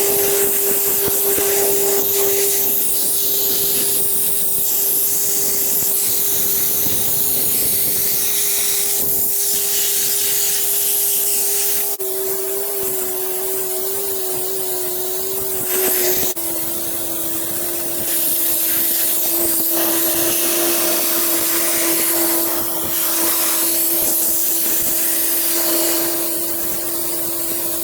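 Sandblaster nozzle blasting abrasive onto steel wheel rims: a loud, steady rushing hiss, over a steady hum that drops slightly in pitch partway through.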